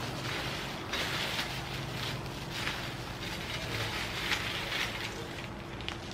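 Popcorn snack mix rustling and crunching as a plastic-gloved hand scoops it out of a glass bowl and drops it into a clear plastic bag, with plastic crinkling, in several short bursts over a steady low hum.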